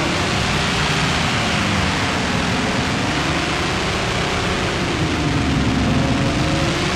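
Live harsh noise music: a loud, unbroken wall of hiss and rumble, with a low droning tone that slowly slides up and down in pitch about every three to four seconds.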